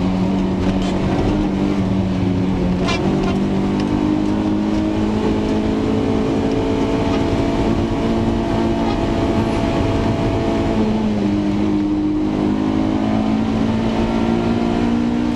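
A car engine running steadily on the road as the car drives, with its pitch stepping up about three seconds in and down again around eleven seconds. A few short knocks or rattles break through, the clearest about three seconds in. This is the abnormal noise being tested for, which the owner suspects comes from the rear shock absorbers or the rear bumper.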